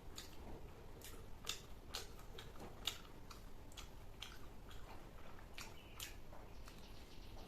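A person chewing fried rice and Manchurian close to the microphone: faint, irregular wet clicks and mouth smacks, one or two a second.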